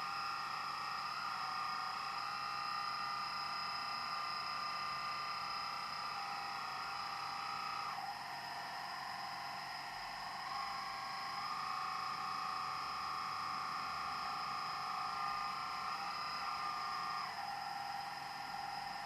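Electric hydraulic pump and motor of a Kabolite RC construction model running with a steady whine that drops about eight seconds in, rises again a couple of seconds later, and drops once more near the end as the load changes.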